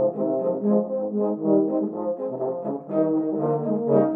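Brass march music: several valved brass horn parts, all played by one player and layered together, move through a march tune in a steady rhythm with full, mellow chords.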